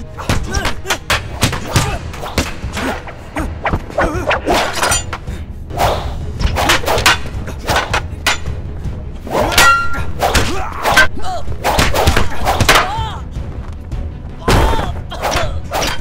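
Film fight sound effects from a long-pole fight: a rapid run of sharp wooden clacks and thuds as staffs strike each other and bodies, with a ringing metallic clang near the middle, shouts and grunts from the fighters, and a score underneath.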